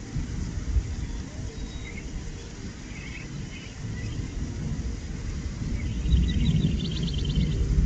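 Low thunder rumble growing louder toward the end, with short bursts of rapid high chirping from insects in between.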